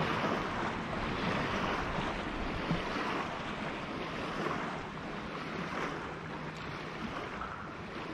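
Water washing along the hull of a moving Hobie Outback kayak, a steady hiss with wind on the microphone, easing off a little in the second half.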